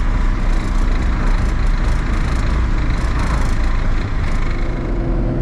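A John Deere tractor's diesel engine running steadily under way on a wet road, heard from inside the cab.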